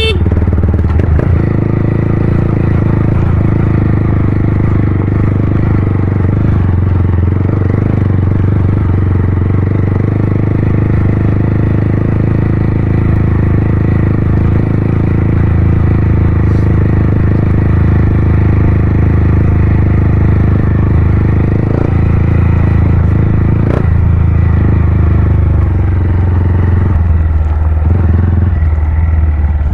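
Honda CG 160 Cargo motorcycle's single-cylinder four-stroke engine running steadily through a Pro Tork Competition aftermarket exhaust, a loud, deep rumble at a constant engine speed.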